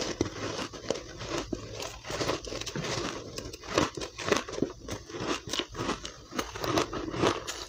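Refrozen soft ice dusted with matcha powder being bitten and chewed: a dense, irregular series of short crunches and crackles.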